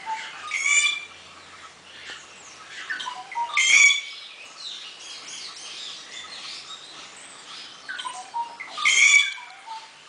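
A pair of rufous treepies calling back and forth. There are three loud calls, one near the start, one about four seconds in and one near the end, with quieter short notes between them.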